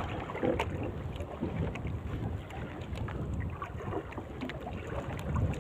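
Wind on the microphone and water moving around a small wooden boat, a steady low rumble with scattered light clicks and knocks.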